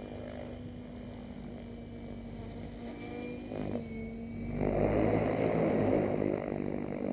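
Align T-Rex 800 electric RC helicopter in flight: a steady pitched whine from its motor and rotors over a low hum. About four and a half seconds in, the sound grows louder and rougher as the helicopter comes closer.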